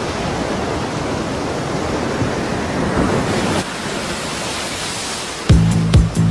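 Ocean surf as a steady rushing wash of breaking waves. About five and a half seconds in, electronic dance music with a steady beat comes in over it.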